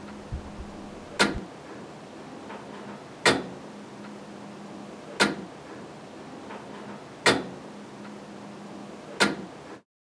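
1876 Leeson and Son tower clock movement ticking: five loud, sharp ticks about two seconds apart, with a steady low hum beneath. The sound cuts off just before the end.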